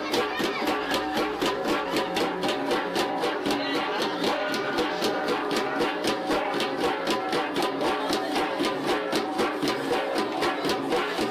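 Kalinga gangsa, flat bronze gongs, played as an ensemble: a fast, even beat of strikes, about five a second, over overlapping ringing tones.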